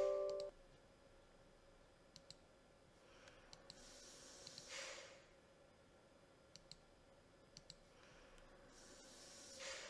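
Computer mouse clicks, a handful of quick single and double clicks spread through, over a quiet room. An electronic chime dies away in the first half second, and two soft breaths swell near the middle and at the end.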